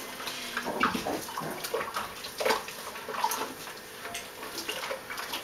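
Water splashing and sloshing in a steel kitchen sink as hands wash a small puppy, in irregular short splashes.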